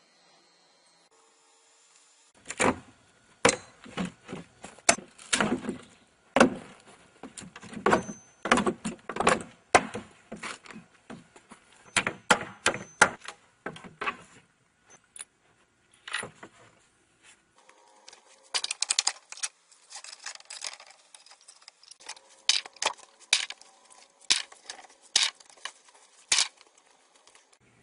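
Irregular hammer blows and metal clinks on weathered wooden boards as old nails are knocked and pried out, in two busy spells with a pause about halfway.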